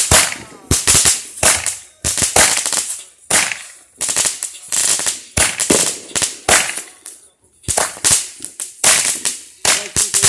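Phantom Fireworks Arctic Blast, a 19-shot 200-gram cake and fountain hybrid, firing. It gives a rapid, irregular string of sharp shots and pops, often several a second, with a hissing spray between them.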